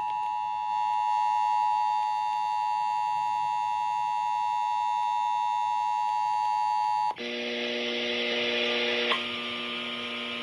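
Emergency Alert System attention signal: a steady two-tone beep held for about seven seconds, then cutting off abruptly. A hiss with a low hum follows, with a click near the end.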